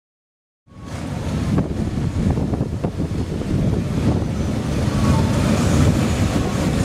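A pack of motorcycles with their engines running, a dense, loud low noise that cuts in abruptly from silence just under a second in.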